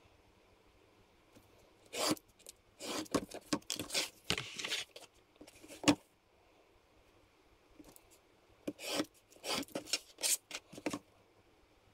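Snap-off craft knife slicing through styrene foam board along a steel ruler, short scraping strokes in two bursts with a pause between. There is one sharp tap about six seconds in.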